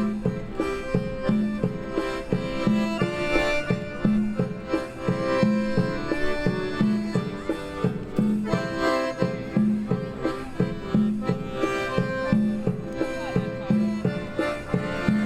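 Instrumental music: a melody played over a low note that repeats at a steady beat.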